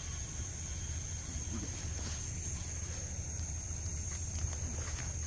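Steady high-pitched chorus of insects, with a low rumble underneath.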